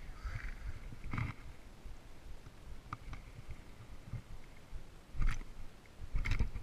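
Handling noise from hands holding a freshly landed largemouth bass: three short, soft knocks and rustles, one about a second in and two near the end, over a faint low rumble.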